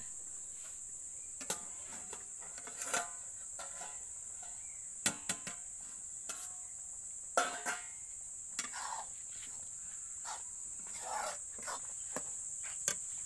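A steady high-pitched insect drone, typical of crickets, with scattered sharp metal clinks and scrapes from a steel spoon and plate-lid on a steel kadai as leaves are stirred in oil.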